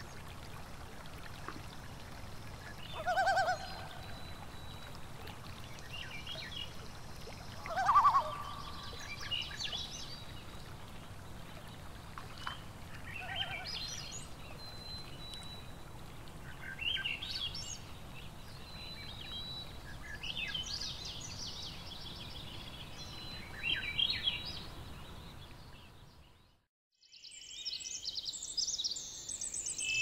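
Several birds calling and chirping over a steady background of running stream water, with two louder calls about 3 and 8 seconds in. The sound drops out briefly near the end, then denser, high-pitched bird song starts.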